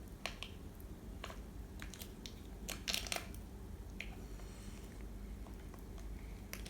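Crunching and scraping as a small tool digs into a toy dig block to free the pieces buried inside: scattered short scrapes and crackles, with a louder burst of scraping about three seconds in.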